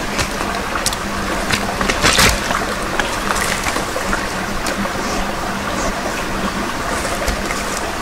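Field recording of a trickling stream at a watering hole, with scattered splashes and clicks, the loudest cluster about two seconds in, from a large animal stepping in the water that the recordist takes for a deer or a bear. A faint steady low hum lies under it.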